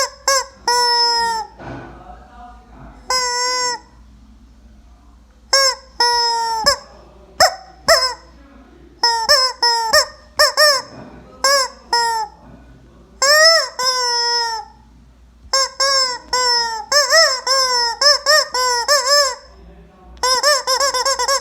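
Rubber chicken toy squeezed over and over, letting out a string of loud squawks. Some are short, others drawn out with the pitch bending up and then down, with short pauses between runs.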